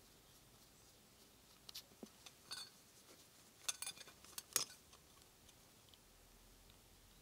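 A few light clicks and taps from a micrometer and copper head gasket being handled over a cylinder barrel, bunched between about two and five seconds in, the sharpest near the end of the bunch.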